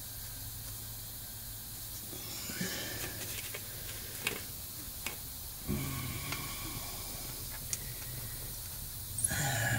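A few short clicks and knocks from the front driveshaft's flange and bolts being fitted to the differential pinion flange by hand, over a steady background hiss.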